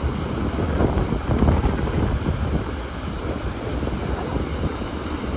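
Wind buffeting the microphone in uneven gusts over the steady rush of a passenger boat's churning wake.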